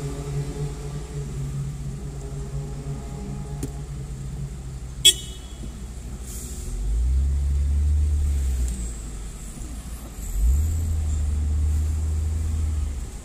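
Car driving in slow city traffic, heard from inside the cabin: a low engine hum, then a low rumble twice as the car moves off and rolls forward. One short, sharp high toot about five seconds in is the loudest sound.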